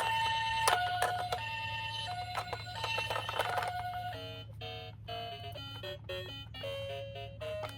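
Toy ambulance's electronic two-tone siren in the Japanese 'pee-poh' style, switching steadily between a higher and a lower tone. About four seconds in it gives way to a quick melody of short plinking notes.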